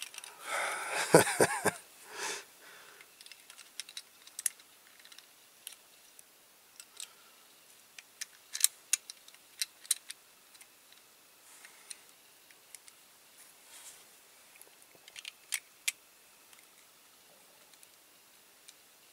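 Scattered light clicks and taps of small parts being handled and fitted while reassembling a die-cast toy car, with a louder burst of noise about a second in.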